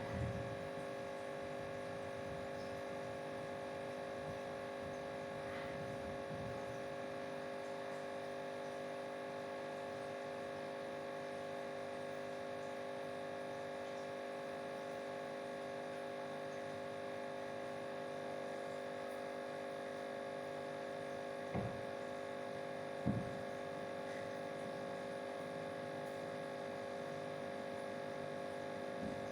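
Steady electrical hum made of several fixed tones, with two brief knocks late on, about a second and a half apart.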